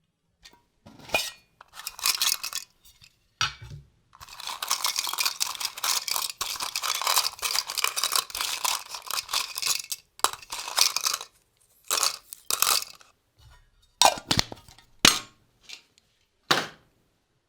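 Hands rummaging through a drawer of small loose objects, rattling and clinking them. After a few short bursts comes a long stretch of steady rummaging in the middle, then a few sharp clinks and knocks near the end.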